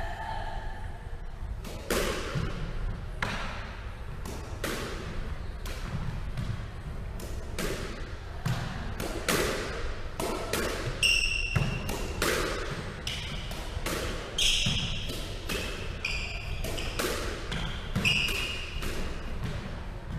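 A squash rally: the rubber ball struck by rackets and smacking off the walls and floor, a sharp impact every half second to a second, echoing in the enclosed court. Short high squeaks from sneakers on the hardwood floor come in between hits in the second half.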